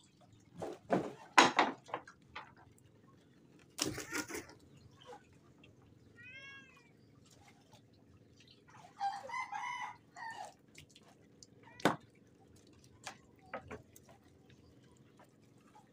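A cat meows once, a short call about six seconds in, and a longer animal call follows around nine to ten seconds in. Sharp knocks and rustles of the mesh net bag being handled on the wooden floor come near the start, around four seconds and near twelve seconds.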